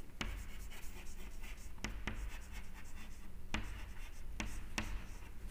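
Chalk writing on a chalkboard: soft scratching strokes broken by about six sharp taps as the chalk strikes the board.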